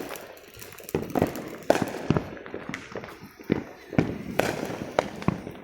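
Fireworks going off all around: a quick, irregular string of sharp bangs and pops, about ten in a few seconds, some near and some farther off.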